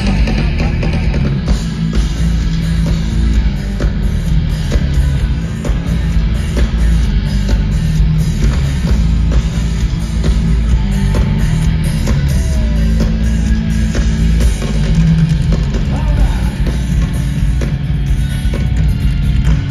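Nu-metal band playing live through a festival PA, heard from within the crowd: a steady pounding drum beat with heavy, booming bass and distorted guitars, no vocals yet.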